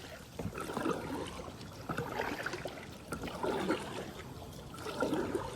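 Kayak paddle strokes in river water, each stroke a splash and trickle of dripping water, coming about every second and a half.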